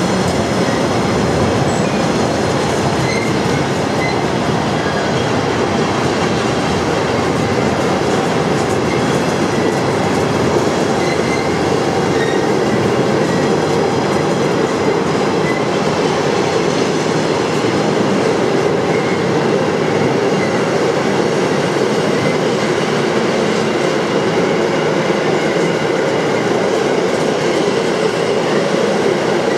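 Freight train of enclosed car-carrier wagons rolling past close by: loud, steady wheel-on-rail noise.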